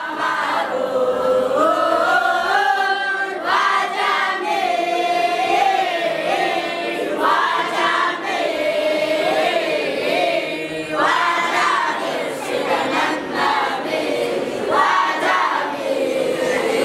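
A choir of boys singing a qasida, an Islamic devotional song, in unison.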